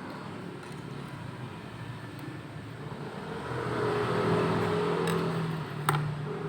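A motor vehicle's engine swelling louder and then fading, as a vehicle passing by, with a single sharp click about six seconds in.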